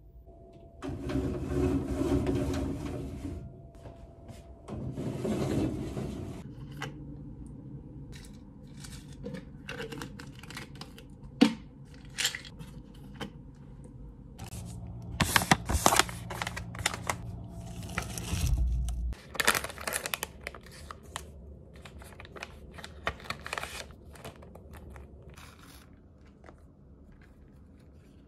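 Household handling noises: two long stretches of rustling near the start, then scattered clicks, knocks and scrapes. A low steady hum runs for a few seconds about two-thirds of the way through.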